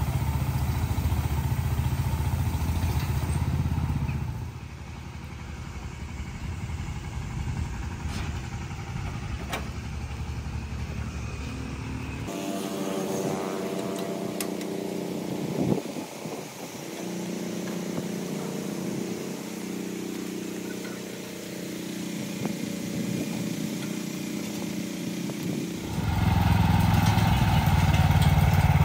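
Small engine of a homemade self-propelled boom crop sprayer running steadily, louder in the first few seconds and again near the end.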